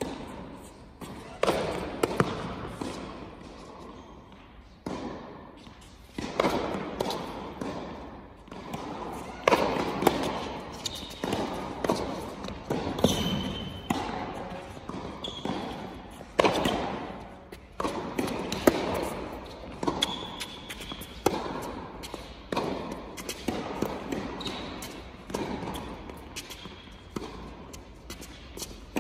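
Tennis rally on an indoor hard court: racket strikes and ball bounces every second or two, echoing through the hall, with a few short high squeaks of shoes on the court.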